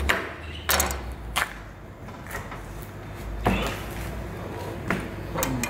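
A whole lamb carcass being butchered on a plastic cutting board, with irregular sharp knocks and thuds from the knife work and from carcass pieces being handled and set down, about six in a few seconds.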